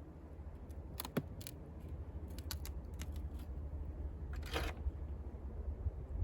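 Wind rumbling on the microphone, with scattered light clicks and a short rustle about four and a half seconds in from hive work being handled.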